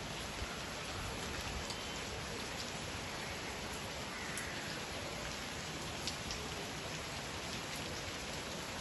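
Heavy rain falling steadily: a dense, even hiss, with a few sharper ticks of single drops.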